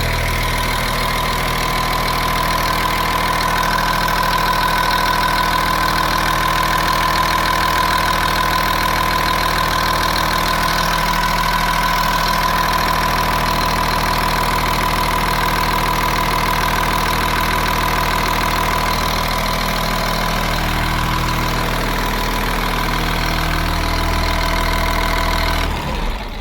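Caterpillar 3126 7.2-litre diesel in a school bus idling steadily, which the owner finds has no blow-by. It cuts off near the end.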